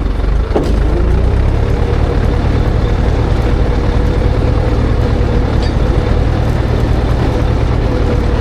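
Ursus C-360 tractor's diesel engine running steadily under load while pulling a disc harrow. A thin steady whine sits over the low engine note, with a brief knock about half a second in.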